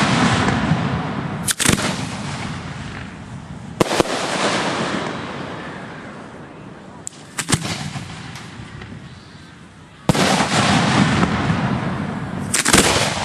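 Aerial fireworks firing at close range from mortar racks: about six sharp reports, two coming close together near the middle. Each is followed by a loud noisy wash that fades over a few seconds.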